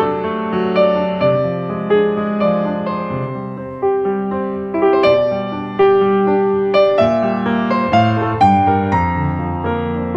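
Background piano music: notes and chords struck every half second or so and left to ring out.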